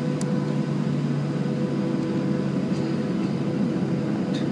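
Boeing 737 cabin noise as the jet taxis onto the runway before takeoff: the engines running steadily at low taxi thrust, an even hum with a couple of faint clicks, one near the start and one near the end.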